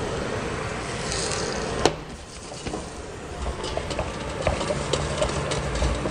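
Vegetable chunks tossed by hand in marinade in a stainless-steel mixing bowl, with small clinks and taps against the metal. A steady background noise stops at a sharp knock about two seconds in.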